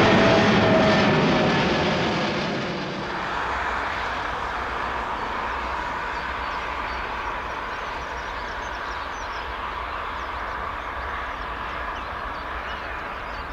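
A departing jet airliner's engine noise fades as it climbs away into cloud, its whine falling in pitch. After a cut, a Boeing 777F freighter's GE90 engines run at takeoff thrust through its takeoff roll and rotation: a steady distant rumble with a thin high whine.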